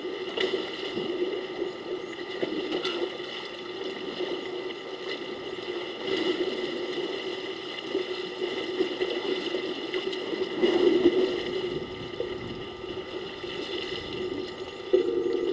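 Water sloshing and splashing as African elephants wallow and roll in a waterhole, over a steady background hum; the splashing swells about eleven seconds in.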